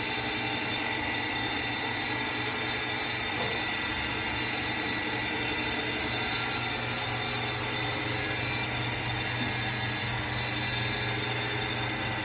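CNC milling machine running its programmed face-milling tool path with no tool or workpiece loaded: a steady mechanical hum with constant high-pitched whines.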